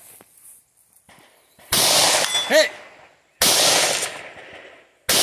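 Three rifle shots about a second and a half apart, each cracking suddenly and then dying away in a long echoing tail.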